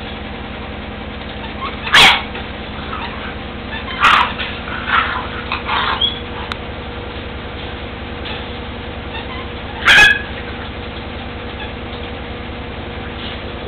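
Seven-week-old puppies yipping and barking in rough play: a sharp yelp about two seconds in, a run of smaller yips a couple of seconds later, and another loud yelp near the end, over a steady low hum.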